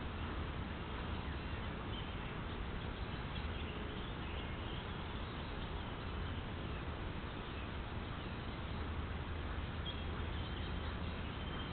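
Steady hiss from a trail camera's microphone in woodland, with a few faint, high bird chirps, most noticeable about ten seconds in.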